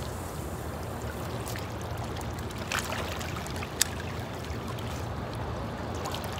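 Shallow water lapping and trickling around someone wading, over a low steady rumble, with a single sharp click just before four seconds in.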